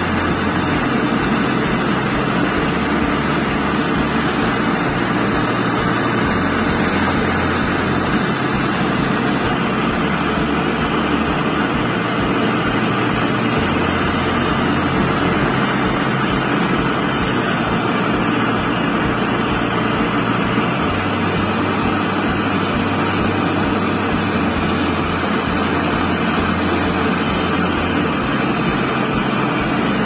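Handheld gas brazing torch burning with a steady rushing hiss as its flame heats the suction-pipe joint on a refrigerator compressor.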